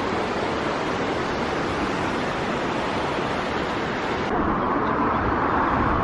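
Fast mountain river rushing over rocks in white-water rapids, a loud, steady rush of water noise. About four seconds in it changes abruptly to a somewhat different steady rushing noise.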